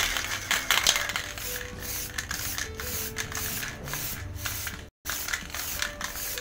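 Samurai Paint aerosol spray can hissing in a series of bursts with short gaps as black paint is sprayed onto a helmet shell in a thick final coat. The sound cuts out completely for a moment about five seconds in.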